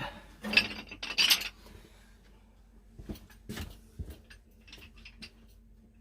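Hand tools being handled and put away: two short clattering bursts in the first second or so, then scattered light metal clinks and knocks.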